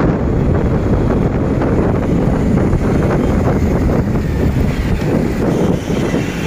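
Wind rushing over the microphone on a moving motorcycle, mixed with the motorcycle's running noise and road traffic.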